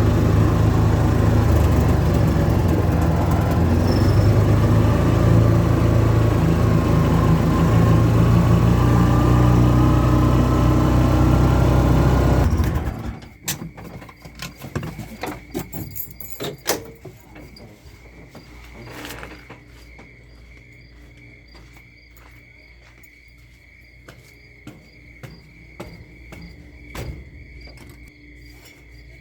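A vehicle engine running steadily, its pitch gliding up and down, stops abruptly about twelve seconds in. After that, crickets chirp steadily at night, with scattered clicks and knocks.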